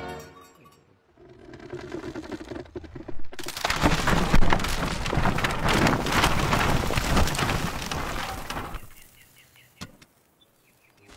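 A tall wooden building collapsing: cracking timber builds for about two seconds, then a loud crash of splintering wood and rumble for about five seconds, dying away with a couple of small knocks.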